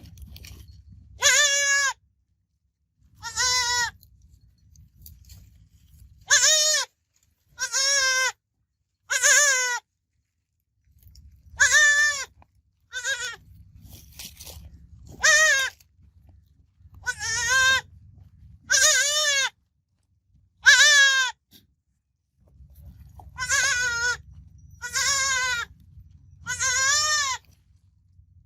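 Goat kid bleating again and again, about fifteen short, high, wavering calls a second or two apart.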